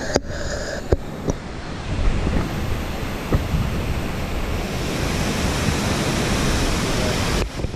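Waterfall rushing, a steady loud wash of falling water, with a few light knocks in the first second.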